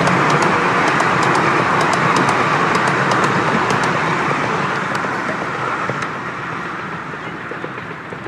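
Miniature railway passenger carriages rolling past on the track, their wheels rumbling and clicking on the rails. The sound fades steadily as the end of the train moves away.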